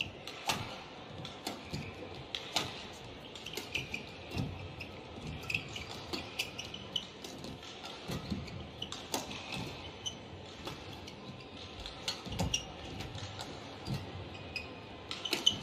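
Badminton rally: rackets striking the shuttlecock with sharp hits about once a second, mixed with players' shoes squeaking and footfalls on the court.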